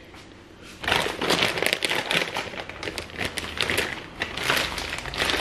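Plastic packaging of store-bought pizza bases crinkling and crackling as it is handled and pulled open, starting about a second in and going on irregularly.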